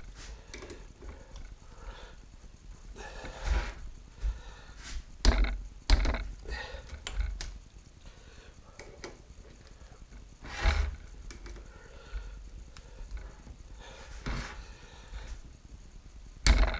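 A heavy steel 3-jaw scroll lathe chuck and hand tools being handled on a workbench as its bolts are torqued to 35: scattered metal knocks and clunks, about half a dozen louder ones, with quieter shuffling between.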